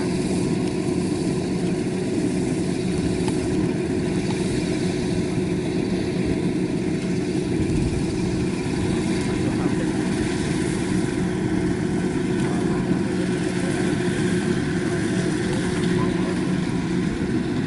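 Kubota DC-93 combine harvester running steadily under load as it cuts rice, its diesel engine and threshing machinery making a continuous, even drone with a steady low hum.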